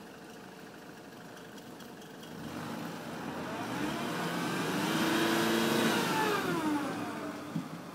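Mitsubishi L200 pickup's engine pulling a vehicle on a tow strap through snow: a low steady run, then revving up under load about two and a half seconds in, holding high, and dropping away again near the end.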